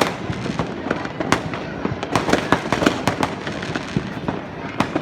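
New Year fireworks going off continuously: irregular sharp cracks and bangs from many launches at once, over a steady rumble of distant explosions, with a dense flurry of bangs about halfway through.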